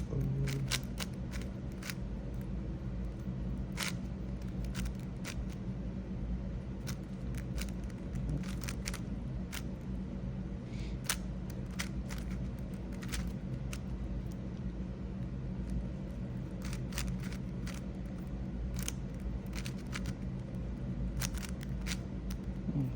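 A GAN 562 M 5x5 speed cube being turned by hand: irregular, scattered clicks as its layers are twisted, over a steady low background hum.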